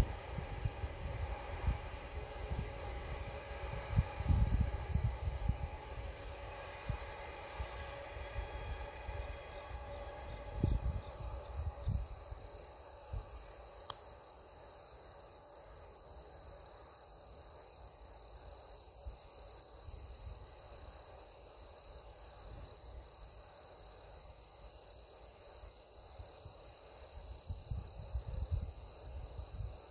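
A high chorus of insects chirping, with a pulsing rhythm. Wind buffets the microphone with low gusts through roughly the first twelve seconds and again near the end, and the faint hum of a departing train fades away in the first half.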